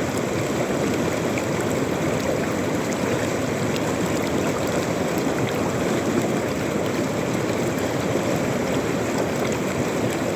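A flowing river: a steady, unbroken rush of water.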